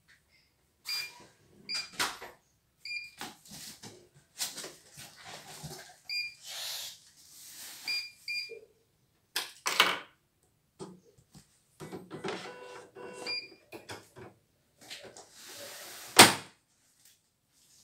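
Short high key beeps from the control panel of a CNY E900 computerized embroidery machine as its buttons are pressed, scattered among clicks, knocks and rustling of hands working the machine. Near the end there is a rustle of stabilizer paper and then a sharp click, the loudest sound, as the embroidery hoop is fitted onto the carriage.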